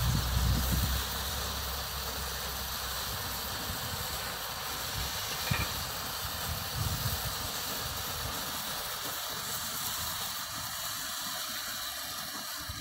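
Several sparklers fizzing steadily as they burn, with a low rumble in the first second.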